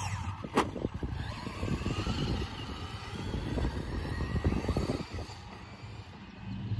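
Electric motors of two Traxxas Mini Maxx RC monster trucks whining as they drive across grass, the whine rising and falling with the throttle. A single sharp thump about half a second in as one truck lands a jump, over a low rumble of wind on the microphone.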